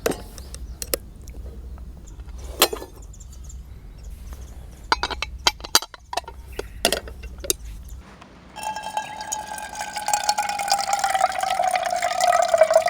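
Sharp metal clicks and clinks as a hot sandwich maker is handled and pressed over a camp stove. After about eight seconds a liquid sound takes over, with a whistle-like tone that slowly falls in pitch and grows louder, like water being poured for coffee.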